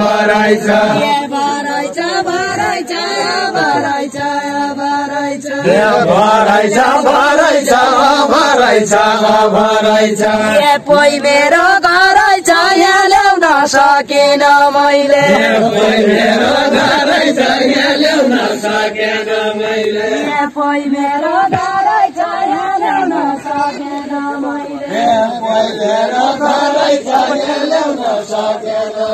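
Voices singing a Deuda, the Far-Western Nepali folk song of the Deuda dance, in a slow melody of long held notes that step up and down.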